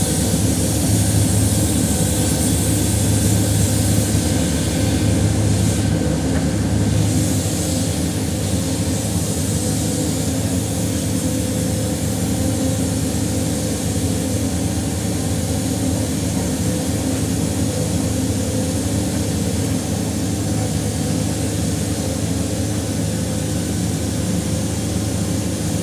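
Heavy engine of a concrete mixer truck running steadily, a low even drone.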